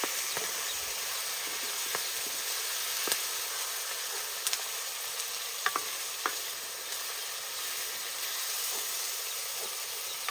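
Chicken pieces frying in an iron wok over a wood fire: a steady sizzle, stirred with a ladle, with occasional sharp clicks and ticks.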